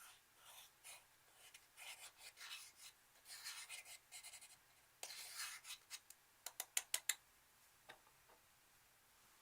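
Slime being worked by hand: scattered soft rubbing and crackling, then a quick run of sharp clicking pops about two-thirds of the way through.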